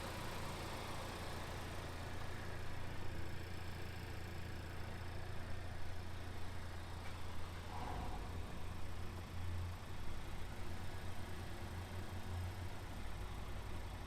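Honda Civic Type R's 2.0-litre turbocharged four-cylinder engine idling steadily with a low, even hum.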